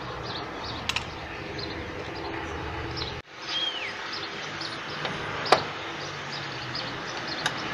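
Outdoor background with a steady low hum, faint chirps repeating, and one short falling whistled bird call a little after three seconds in. Three short sharp clicks come about one, five and a half and seven and a half seconds in, and the sound cuts out for a moment just after three seconds.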